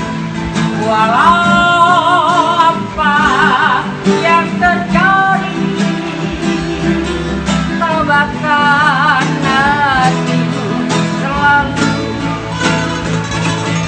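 An elderly man singing with two acoustic guitars strumming along. The voice holds long, wavering notes with wide vibrato, in two phrases, one in the first few seconds and another about two-thirds of the way through.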